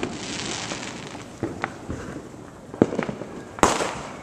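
Consumer fireworks going off all around. A crackling hiss fades over the first second or so, then come scattered sharp bangs, and a louder bang with a rushing hiss a little before the end.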